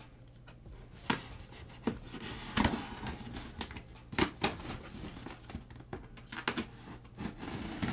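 Knife blade cutting through packing tape on a cardboard box: scratchy scraping with irregular sharp snaps and clicks as the blade works through the tough tape.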